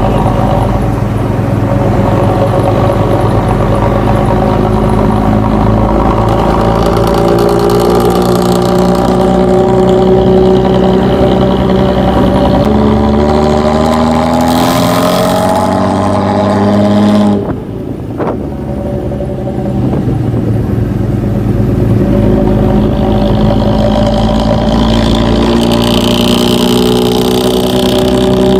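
Luragung Jaya bus's diesel engine with its snoring ('ngorok') exhaust, pulling hard. Its note climbs in pitch, falls away suddenly about two-thirds of the way through, then picks up again.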